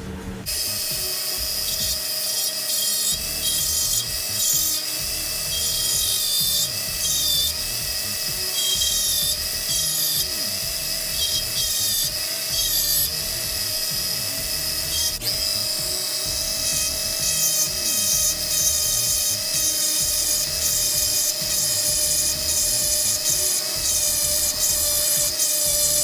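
Handheld rotary tool with a small grinding bit, running at a steady high whine while grinding the edge of a steel razor blade, with an uneven scratching grind as the bit bears on the metal. It starts about half a second in.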